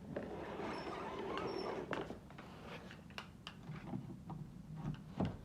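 Handling noise from a vacuum cleaner being moved about: a rustling scrape for the first two seconds, then scattered light clicks and knocks of plastic parts. The motor is not running.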